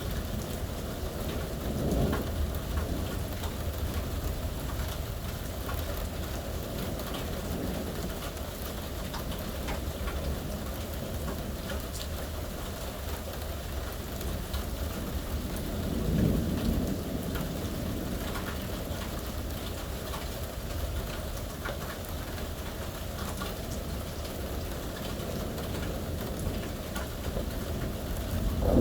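Steady rain falling, with rumbles of thunder about two seconds in and again around the middle, and a louder crack of thunder right at the end.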